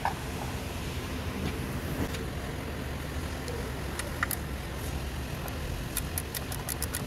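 Hand tools working on an engine over a steady low background hum: a few single clicks of metal on metal, then a ratchet wrench clicking quickly and evenly near the end.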